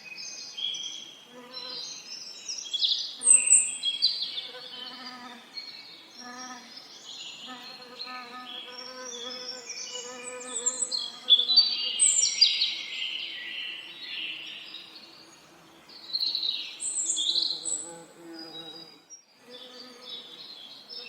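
Several songbirds singing and calling in overlapping phrases, loudest about three seconds in and again around eleven to thirteen seconds in, over bees buzzing in repeated short passes.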